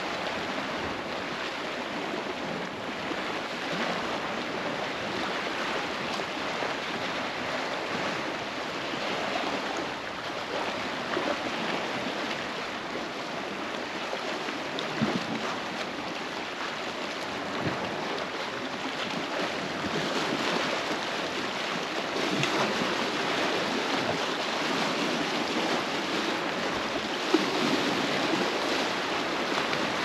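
Small waves lapping and washing against a rock seawall, a steady wash with a brief tap about halfway through and another near the end.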